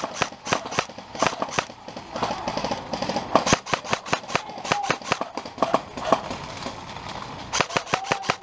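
Airsoft guns firing: a run of sharp pops at irregular spacing, with a quicker burst near the end.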